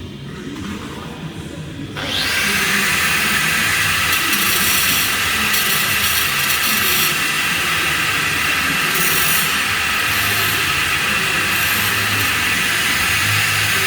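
Flux-cored arc welding arc striking about two seconds in, then burning with a loud, steady hiss.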